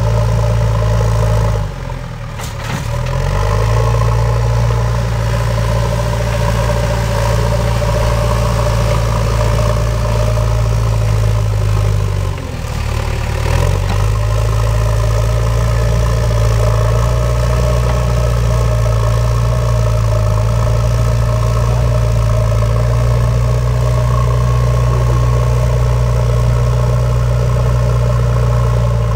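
Diesel engine of a JCB backhoe loader running steadily under load as the machine levels soil with its front bucket. Twice, at about two seconds and again about twelve seconds in, the engine revs drop briefly and climb back.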